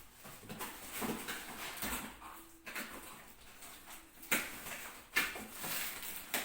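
Melamine plates being handled and unpacked: irregular rustling with several sharp plastic clacks, the loudest a little after four seconds and about five seconds in.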